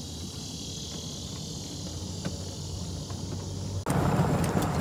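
Golf cart rolling along with a low steady hum, under a steady high chorus of insects. About four seconds in, the tyres run onto a gravel path and a louder rumble and crunch sets in, with sharp clicks of stones.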